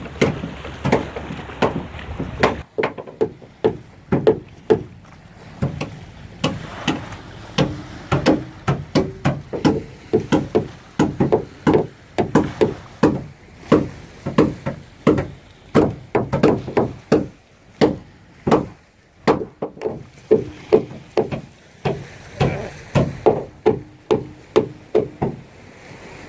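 Hammer driving nails into the wooden planks of a boat hull: a steady run of sharp blows, about two to three a second, with short pauses and a slight ring on some strokes.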